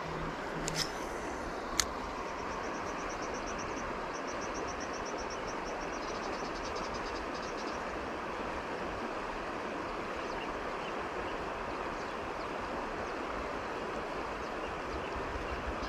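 River water rushing steadily over rocks and rapids. An insect trills in rapid high pulses from about two seconds in to about seven seconds, and two sharp clicks sound in the first two seconds.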